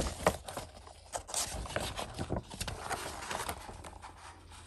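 Folded paper poster being unfolded and handled: irregular crisp rustling and crinkling of paper, thinning out toward the end.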